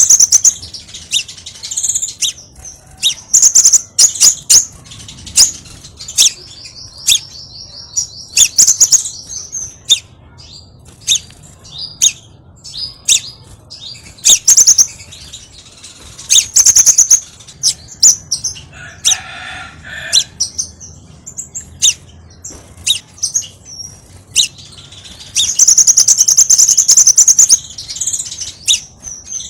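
Scarlet minivet calling: sharp, high-pitched chirps and fast trills repeated in quick bursts, with a long dense trill near the end.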